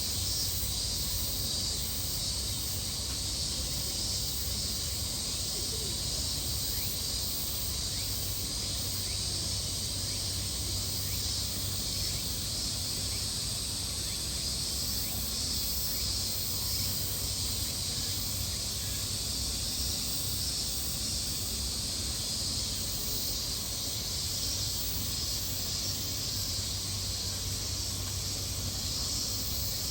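Cicadas droning steadily in a high, shrill wash, with a low steady hum underneath.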